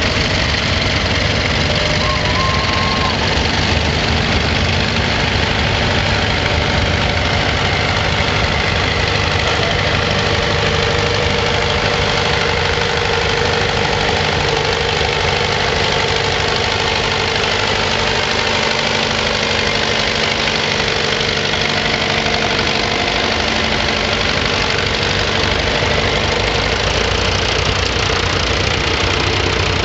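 Several old farm tractor engines running steadily as the tractors are driven slowly close by.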